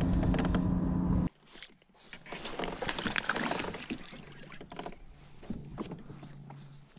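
A steady low hum that cuts off abruptly about a second in, then water splashing and lapping at a fishing kayak, with scattered small clicks and knocks of rod and reel handling.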